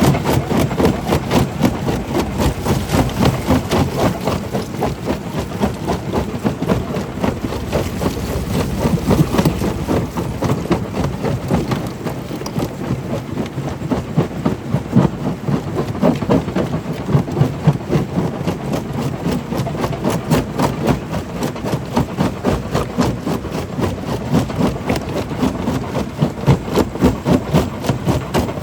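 Stone crusher machine running: a steady, loud rumble with a dense, rapid clatter of stone being broken.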